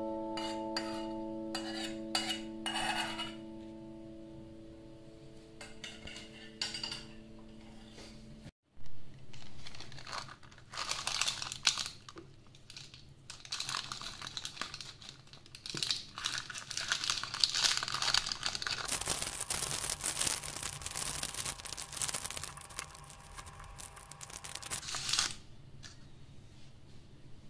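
Fading piano notes, then from about ten seconds in a long spell of crackly scraping and rustling with small clicks and clinks of kitchen utensils, stopping suddenly near the end.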